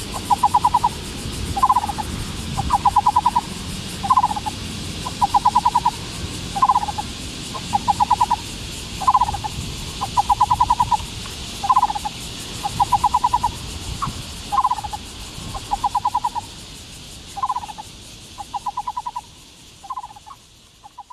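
Taiwan barbet singing. Short single notes alternate with quick runs of about five notes, about every second and a quarter, growing fainter near the end.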